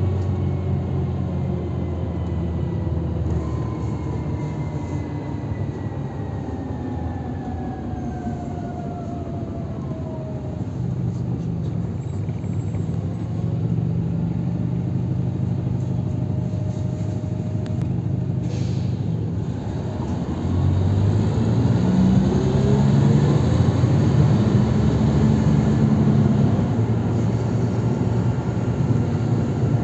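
Cabin sound of a GolAZ-AKA-5225 articulated city bus, with its Mercedes-Benz OM 447 hLA diesel and Voith DIWA automatic gearbox. The engine and gearbox whine fall in pitch as the bus slows. A short hiss of air comes just before nineteen seconds in. About twenty seconds in the bus pulls away, and the whine rises and the running grows louder as it speeds up.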